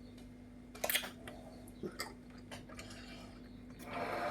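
A few scattered light clinks and knocks of dishes and cutlery being handled while washing up, the loudest about a second in, over a faint steady hum, with a short rush of noise near the end.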